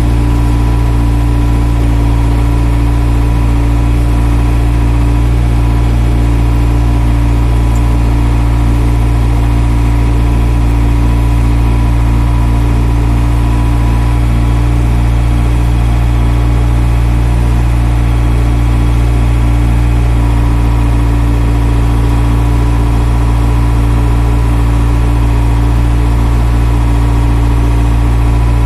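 JCB backhoe loader's diesel engine running at a steady, unchanging pitch, heard loud and close from the cab as the machine travels along.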